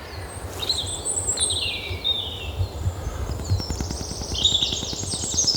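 Several birds chirping and trilling in high-pitched phrases, over a continuous low rumbling noise with small knocks on the microphone.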